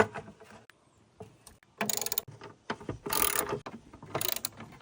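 Socket ratchet wrench clicking in short strokes, about three bursts a second apart, as a 10mm bolt is turned out.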